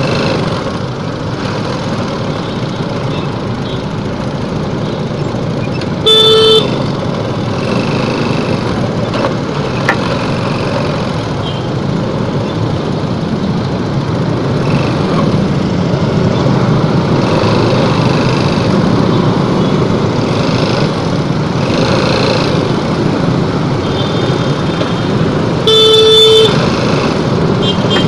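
Motorcycle engine running at low speed amid dense stop-and-go traffic, with a vehicle horn giving two short loud blasts, about six seconds in and again near the end.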